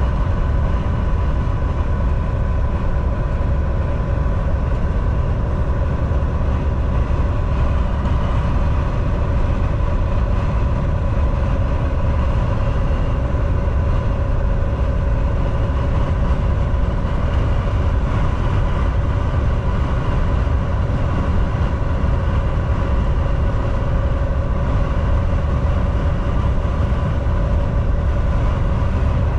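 Semi truck driving at steady highway speed: a continuous low drone of engine and road noise with a thin steady whine over it, unchanging throughout.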